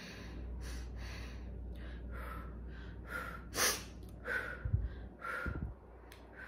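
A woman's short, audible breaths and sighs, a string of them about every half second, over a low steady hum. Two soft low thumps come about five seconds in.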